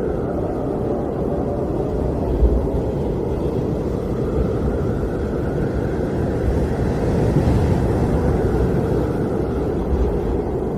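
Blizzard wind blowing steadily: a deep, rushing noise that swells slightly in the middle.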